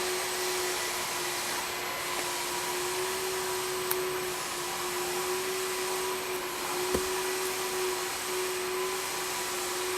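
A steady motor hum over an even hiss, unchanging in pitch and level, with a faint tick about four seconds in and a soft knock about seven seconds in.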